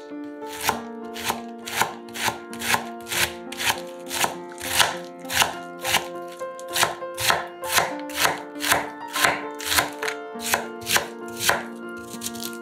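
Chef's knife shredding a head of cabbage on a wooden cutting board: a steady run of crisp cutting strokes, about two to three a second, with background music under them.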